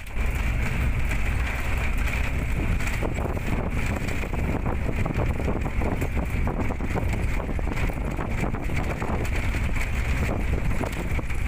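Road vehicle driving along, heard from inside: a steady rumble of engine and road noise with wind buffeting the microphone and frequent small rattles.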